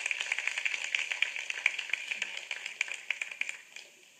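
A small group of people clapping, dying away near the end.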